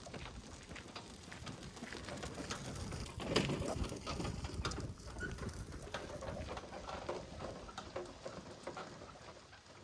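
A dove cooing, amid scattered clicks and rustling, with the loudest rustle about three and a half seconds in.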